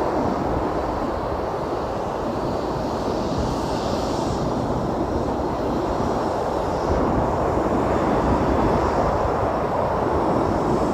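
Steady rushing noise of wind and surf at the shore, with low rumbling buffets of wind on the microphone.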